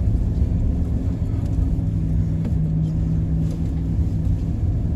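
Pickup truck engine running under load as the truck drives through snow, a continuous low rumble with the engine note holding steady through the middle.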